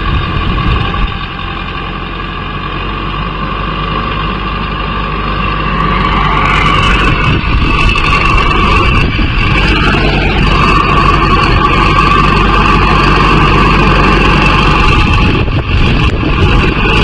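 Mahindra Arjun Novo 605 DI tractor's diesel engine running steadily in the field, getting louder about six seconds in, when a rushing hiss joins it.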